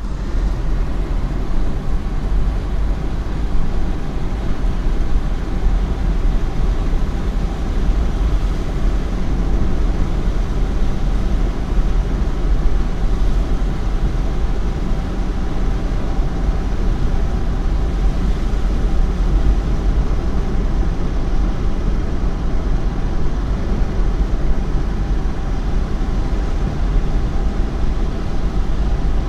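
A car driving, heard from inside the cabin: a steady low rumble of engine and tyres on wet pavement, unchanging throughout.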